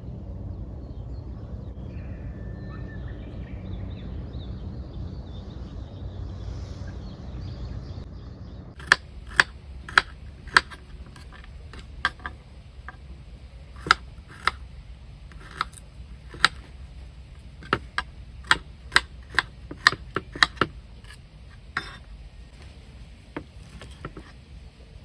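A low steady rumble that stops about a third of the way in, then about fifteen sharp, irregular cracks and snaps of firewood.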